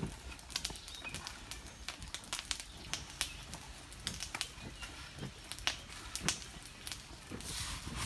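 Charcoal fire in a clay furnace blown by hand-pumped piston bellows: irregular sharp crackles and knocks over soft puffs of air, with a longer rushing whoosh of flame near the end.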